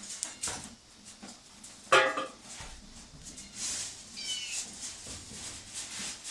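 A domestic animal's short cry about two seconds in, then a thinner, higher-pitched whine a couple of seconds later, among scattered light clicks and clatter.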